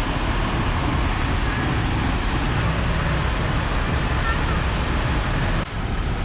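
Steady road and engine noise inside a moving car's cabin. Near the end it changes abruptly, the hiss dropping away.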